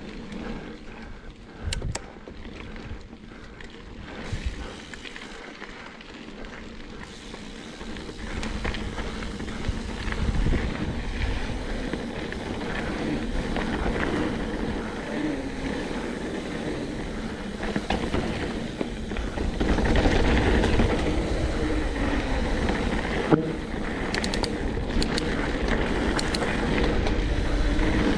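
Mountain bike riding a dirt trail: tyres rolling, rattling over the ground, and wind noise, getting louder about eight seconds in and again near twenty seconds as speed picks up.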